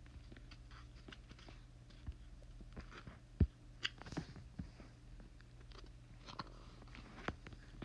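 Light, scattered taps and clicks over a low steady hum, with one louder thump about three and a half seconds in.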